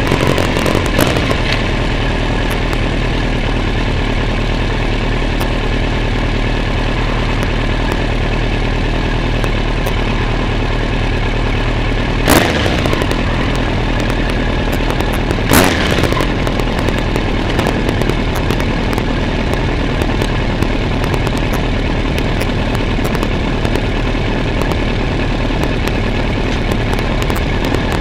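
Motorcycle engine running steadily at low road speed, heard from an onboard camera on the bike, with two short louder noises about twelve and fifteen seconds in.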